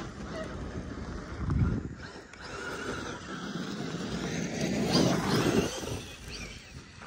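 Kyosho Mad Wagon 1/10 RC monster truck driving on loose dirt and gravel: its Castle 3200kv brushless motor whines up and down while the tyres scrabble on the dirt. It is loudest briefly about one and a half seconds in and again around five seconds in, as it passes close by.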